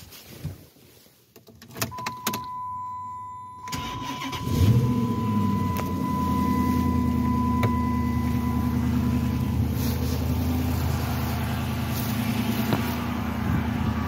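2006 Chrysler 300 engine cold-started: it catches about four seconds in, revs up briefly, then settles into a steady idle. There is no serpentine belt squeal on this cold start.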